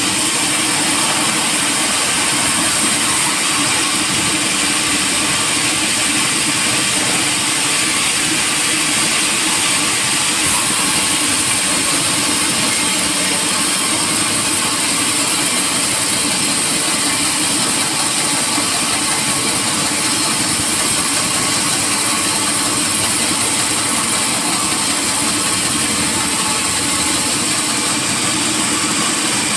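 Sawmill machinery running steadily: a loud, even, unbroken mechanical noise with a strong high hiss.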